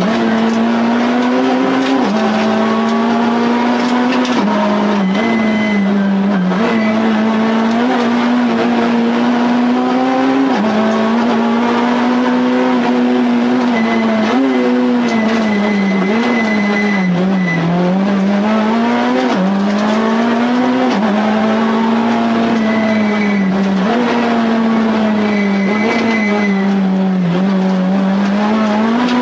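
Citroën C2 R2 Max rally car's four-cylinder engine heard from inside the cabin, running hard at high revs; its pitch drops briefly every few seconds on lifts and gear changes and climbs again, with a longer drop and climb a little past halfway. A faint high squeal comes and goes.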